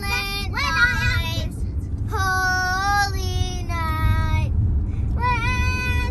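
A child singing slowly in three phrases of long held notes, with short pauses between them, over the low steady rumble of the car.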